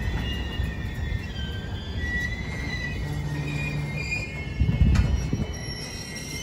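Empty double-stack intermodal well cars of a freight train rolling past: a steady rumble of wheels on rail with wheels squealing in thin, high, shifting tones. A sharp bang comes about five seconds in.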